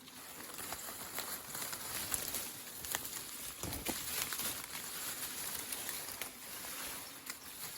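Footsteps crunching and rustling through dry leaf litter and undergrowth, with scattered sharp cracks of twigs.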